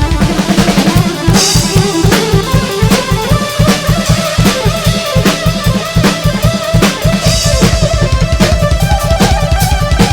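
Live drum kit played in a fast, dense rhythm, with bass drum and snare strikes driving it, under a held keyboard melody.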